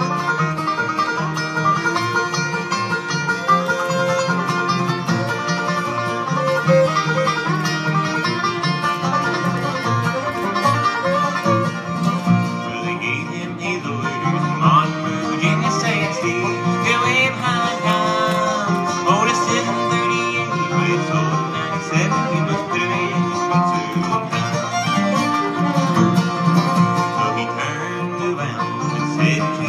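A bluegrass band playing live through the stage PA: fiddle, five-string banjo, acoustic guitar and upright bass, with the tune running steadily throughout.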